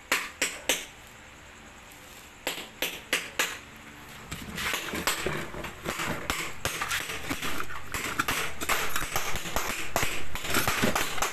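Hand hammer tapping on brass sheet in traditional pukpuk embossing and detailing work. A few separate strikes come first, then quick, continuous tapping from about four and a half seconds in that grows louder.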